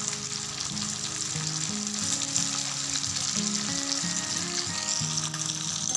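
Chicken pieces deep-frying in hot oil, a steady sizzle, at the end of a three-minute fry. A soft melody of background music plays over it.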